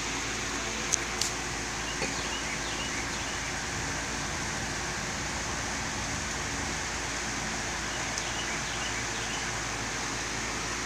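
Steady background hiss and low hum, with a few faint clicks within the first two seconds.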